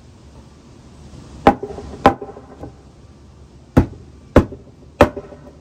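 Hammer blows driving a new wooden rim joist board edgeways into its slot: two strikes, a pause, then three more, each a sharp knock with a short ring. The board is not seating well on this first attempt.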